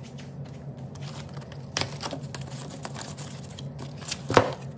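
Cardboard box being cut and pried open with a hand tool: scattered clicks, scrapes and crinkles of cardboard, with one sharper knock a little past four seconds in.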